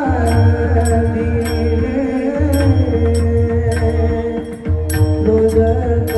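Marathi devotional bhajan music: long, held sung notes that glide from pitch to pitch, over drumming and sharp, regularly struck percussion.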